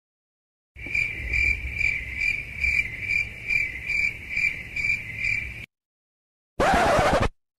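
Cricket chirping as an edited-in sound effect: a high chirp pulsing a little over twice a second for about five seconds, cutting in and out abruptly. A short noisy burst follows near the end.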